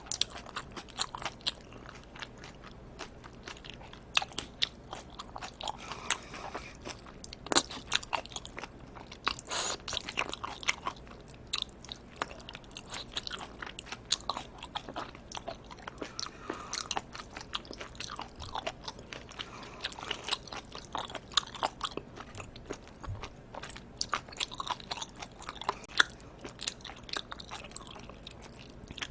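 Close-miked eating of live octopus and cold bibim noodles: wet chewing and biting with many irregular sharp smacks and crunchy clicks.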